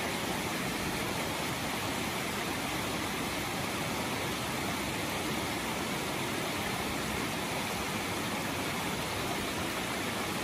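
Steady rushing of a mountain creek flowing over rocks, an even hiss with no break.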